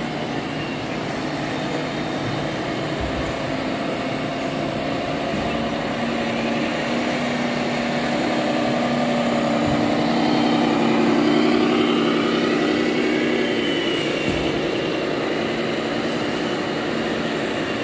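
Radio-controlled model truck running: a steady engine-like drone with whining tones that rise and fall, swelling to its loudest a little past the middle.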